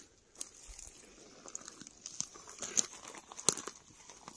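Footsteps crunching on dry grass, pine needles and twigs: irregular crackles and crunches of walking on a dry forest floor, the loudest about three and a half seconds in.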